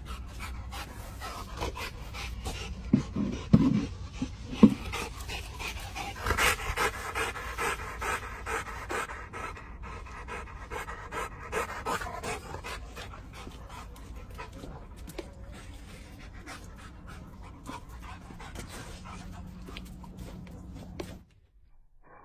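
A dog panting rapidly and rhythmically, with a few sharp knocks about three to five seconds in; the sound cuts off abruptly shortly before the end.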